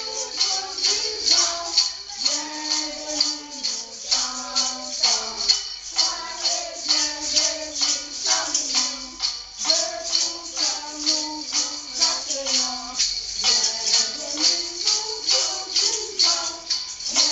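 Music with a steady rattling shaker beat of about four strokes a second under a simple melody of held notes.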